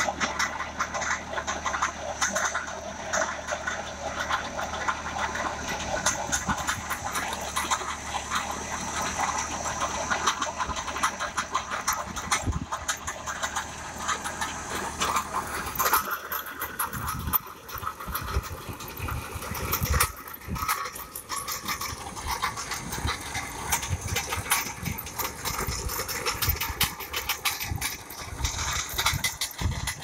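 John Deere tractor engine running under load as its mounted trencher digs through dry soil, with a steady rattle of clods and stones thrown off by the digging rotor. The low engine rumble thins out about halfway through.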